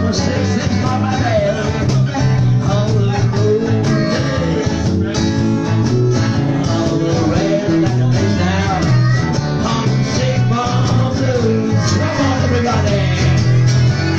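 Live blues played on a strummed acoustic guitar, with a man singing into a microphone and a steady bass line underneath.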